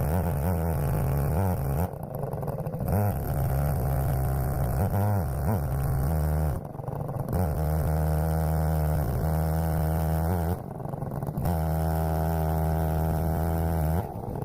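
Holzfforma Stihl 070-clone two-stroke chainsaw on an Alaskan mill, running under load as its 36-inch bar rips a cherry log lengthwise. The engine note holds steady, dipping briefly about three times.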